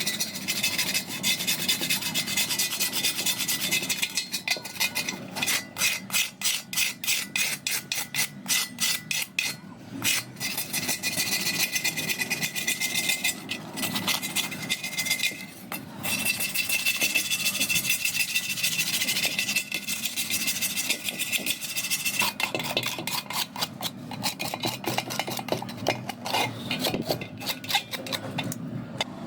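Hand filing: rapid back-and-forth rasping strokes, about four to five a second in runs, with steadier scraping between the runs.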